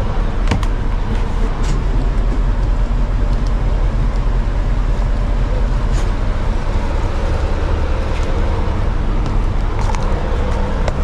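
Ice cream van's engine running steadily with a low, even hum, and a few faint clicks over it.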